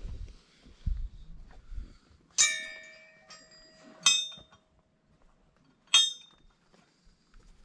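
Metal temple bell struck three times, less than two seconds apart, each strike ringing out clearly and fading.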